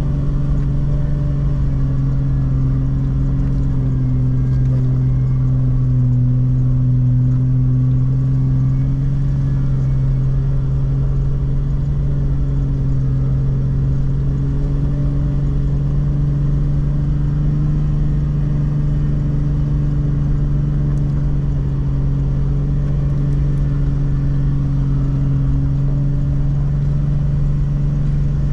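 Jeep LJ engine pulling steadily at low revs as it climbs a steep grade towing a trailer, its pitch dipping slightly a few seconds in and then holding, over low drivetrain and road rumble.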